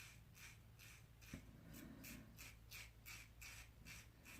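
Faint, quick strokes of a safety razor scraping stubble through shaving lather, about three short strokes a second.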